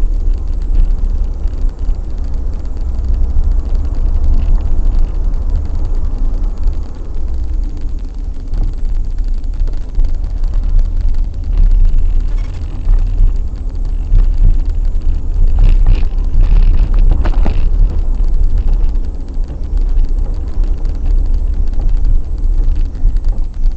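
Car driving, heard from a dashcam inside the cabin: a steady low rumble of engine and road noise, with a few brief knocks about two thirds of the way in.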